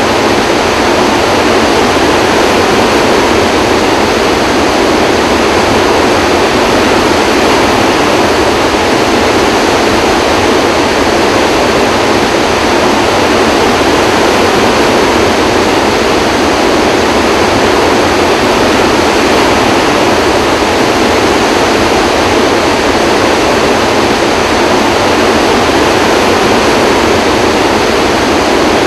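Flood release pouring through a dam's eight open spillway gates, about 44,000 cubic feet of water a second. It makes a loud, steady rush of water that does not change.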